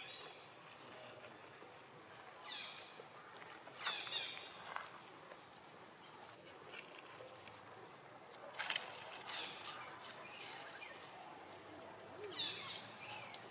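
Baby long-tailed macaques giving short high squeals several times while play-wrestling, each cry dropping in pitch. Short, sharp high chirps repeat in the background from about halfway through.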